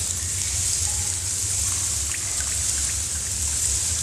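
Steady rain-like hiss with a low hum underneath and a few faint ticks scattered through it.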